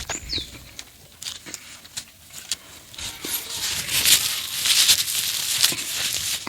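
Close-miked eating sounds from a meal of fatty pork curry with rice: scattered wet clicks and smacks, thickening into a dense, crackly smacking from about three seconds in.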